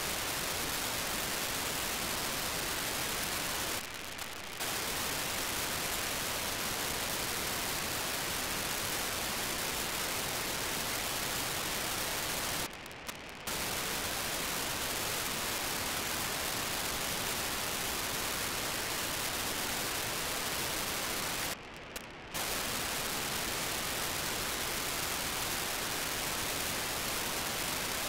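Steady FM receiver hiss from an RTL-SDR tuned to the BlueWalker-3 satellite's 437.5 MHz downlink. It is broken three times, about nine seconds apart, by short bursts of under a second where the hiss drops away. These are the satellite's 2400-baud FSK telemetry packets quieting the FM noise.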